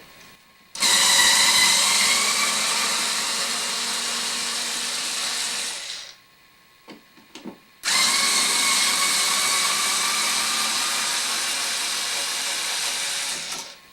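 Small electric screwdriver running in two bursts of about five seconds each, driving out the top and bottom screws that hold a light switch in its wall box. Each run is a steady motor whine, with a few light clicks in the pause between them.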